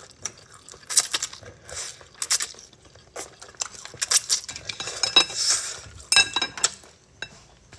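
Chopsticks clicking and scraping against ceramic bowls of noodles in a run of short, irregular taps, with one brief ringing clink near the end.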